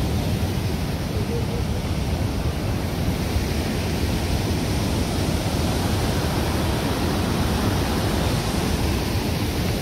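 Steady, even rushing noise with a strong low rumble, unbroken and without pauses.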